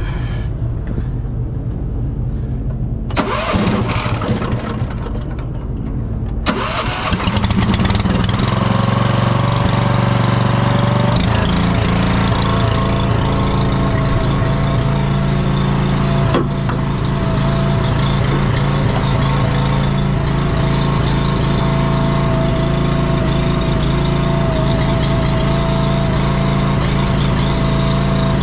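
Small auxiliary pony engine on a lowboy trailer's gooseneck, the kind that drives the trailer's hydraulics. It is cranked about three seconds in, catches about six seconds in, and then runs steadily.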